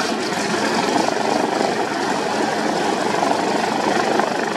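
Biplane's propeller engine running loud and steady.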